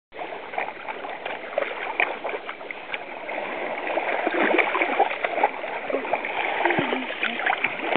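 Shallow sea water washing and splashing, with many small irregular splashes, growing a little louder about halfway through.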